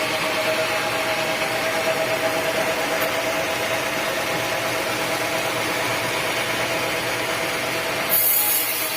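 Sawmill power saw cutting teak wood: a steady running tone under the noise of the cut, with a brief louder hiss about eight seconds in.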